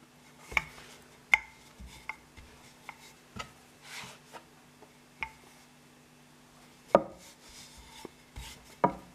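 Wooden rolling pin knocking and rolling on a worktop as croissant dough is rolled out, with scattered sharp clacks about a second apart, the two loudest near the end. A faint steady hum runs underneath.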